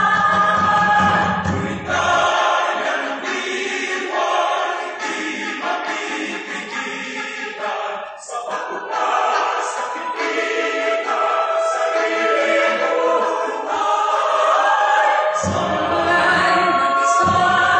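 Mixed-voice choir singing live in sustained harmony. The low voices drop out about two seconds in and come back near the end.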